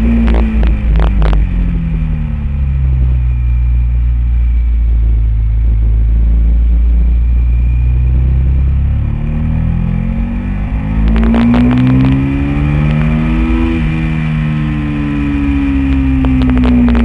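Honda VTR1000 SP1's 999 cc V-twin engine running hard at track speed, its pitch falling off, holding, then rising and falling again through the corners, with heavy wind rumble on the fairing-mounted microphone.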